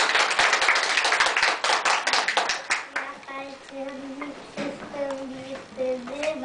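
A small group clapping, which stops about three seconds in. A young child's voice then takes over, singing in short held notes.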